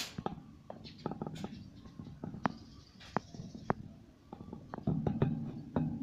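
Budgerigars chattering: a busy run of sharp clicks and short chirps, with a brief buzzy warble a little after the middle.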